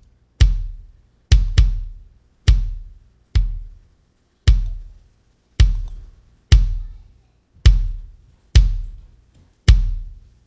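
Soloed, sample-replaced kick drum playing back through an SSL E channel strip EQ and compressor being set up: eleven single hits, roughly one a second with a close double near the start, each a deep thump with a sharp click at the front that dies quickly.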